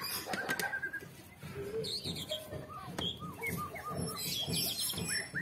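Small birds chirping with many short, quick calls. A few light clicks near the start and about three seconds in.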